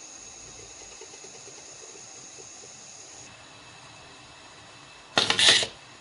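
Benchtop wire stripping machine cycling once as a wire is fed in: a short, loud mechanical burst lasting about half a second, about five seconds in, over a faint steady background.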